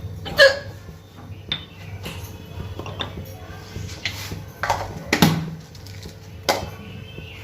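Dishes and utensils being handled: a series of irregular sharp clinks and knocks. The loudest comes just under half a second in, and another strong one about five seconds in.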